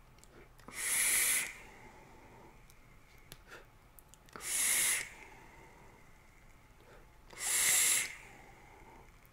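Three short draws on a vape mod, air hissing through the atomizer for under a second each, a few seconds apart.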